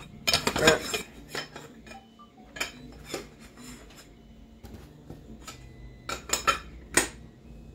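Black aluminium frame extrusions and other metal kit parts clinking and knocking together as they are handled in a cardboard box. A cluster of knocks comes in the first second, then single clinks follow at intervals, the last few close together near the end.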